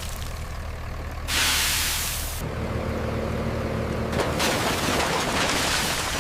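A heavy vehicle's engine rumbling low, with a loud air-release hiss a little over a second in that lasts about a second, followed by a brief steady hum and rougher mechanical noise.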